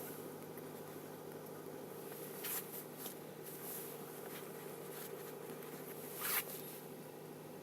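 Kia Ceed II engine idling steadily while cold. A few brief rustling scrapes sound over it, the loudest about six seconds in.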